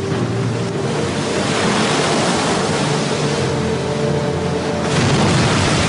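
Rushing, splashing seawater, as from a boat's bow cutting through waves and a whale breaching, with background music of held notes beneath it.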